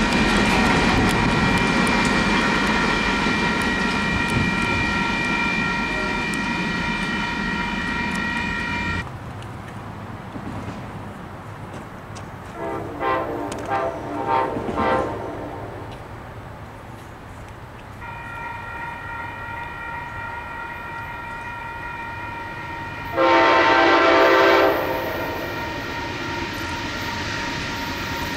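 Train horn sounding several tones at once in long held blasts, with a low rumble under the first part. The horn cuts off abruptly about 9 seconds in, gives a few short blasts a few seconds later, and resumes abruptly around 18 seconds. A louder, fuller blast comes about 23 seconds in as an Amtrak passenger train approaches.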